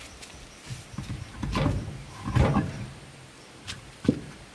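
Heavy truck wheel and tyre being shoved and rolled into place against the hub: two scraping, shuffling shoves in the middle, then a sharp knock near the end.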